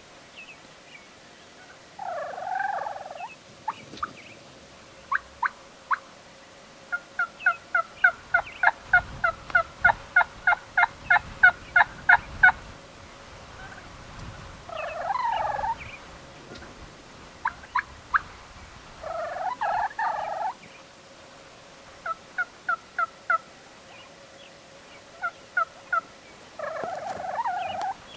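Gould's wild turkey gobblers gobbling four times, each gobble a rattling call of about a second. Between the gobbles come runs of short, sharp turkey yelps, the longest a quick series of about twenty notes.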